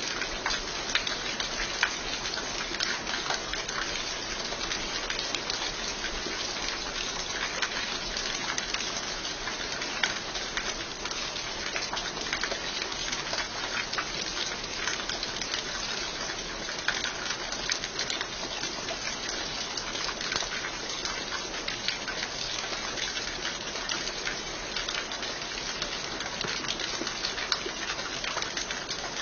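Rain falling steadily, a constant hiss of rain with many separate drops striking close by.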